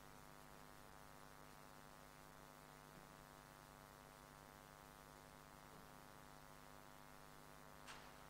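Near silence with a steady electrical mains hum in the recording, and one brief soft noise near the end.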